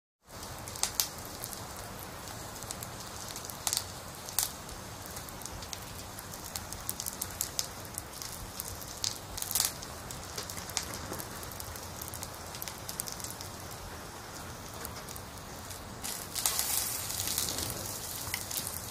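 Meat sizzling on a wire grill over hot charcoal: a steady hiss with sharp pops and crackles now and then. The sizzle swells louder near the end.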